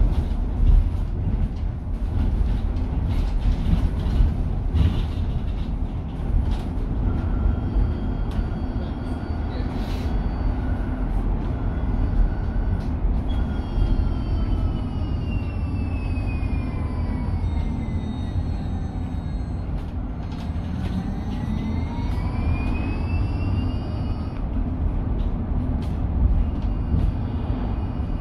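Inside a Mercedes-Benz eCitaro electric bus on the move: steady road and tyre rumble with light rattles. About halfway through, the electric drive's whine falls in pitch as the bus slows, then rises again as it picks up speed.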